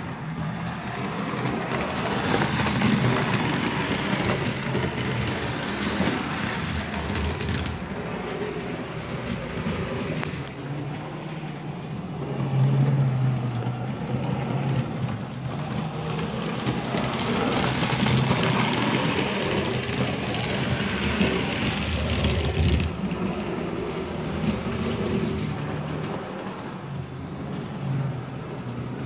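HO-scale model train running on the layout's track: a steady electric motor hum under a rolling wheel-on-rail hiss that fades away sharply twice, about eight seconds in and again about twenty-three seconds in, and comes back between.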